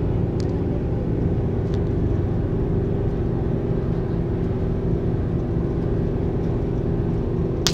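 A car ferry's engines running with a steady low drone, heard from on deck. A short sharp click comes near the end.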